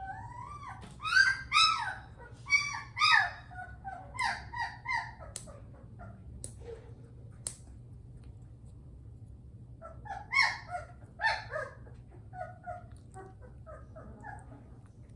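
Three-week-old Bernese Mountain Dog puppy crying, a run of high rising-and-falling whining yelps, then a pause with a few sharp clicks, then a second shorter bout of cries.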